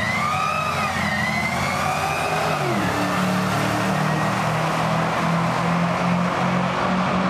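Two supercharged 6.2-litre V8s of 2009 Cadillac CTS-Vs accelerating hard off the drag-strip launch, the engine note and supercharger whine rising in pitch with a brief dip about a second in at a gear change. After nearly three seconds the rising whine drops away into a steady lower engine drone.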